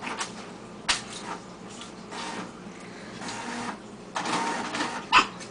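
Printer running in short, irregular mechanical bursts, the sound the puppy is reacting to, with two sharp snaps, about a second in and the louder one near the end.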